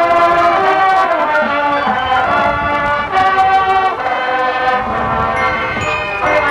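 High school marching band playing held chords that change every second or so, with short high ringing notes coming in near the end.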